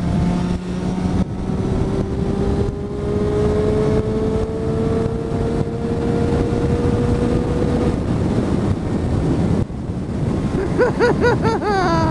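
Motorcycle engine pulling up through the revs, its pitch rising slowly and steadily for several seconds, under heavy wind noise at speed.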